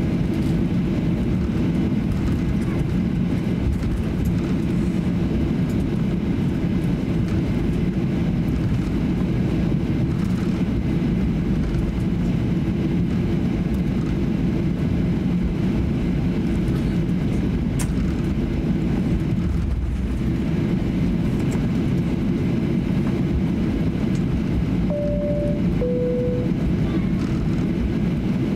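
Cabin noise of a Boeing 737-800 taxiing: a steady low rumble from its CFM56 engines at taxi power and the airframe rolling along the taxiway. Near the end, a two-note descending cabin chime sounds.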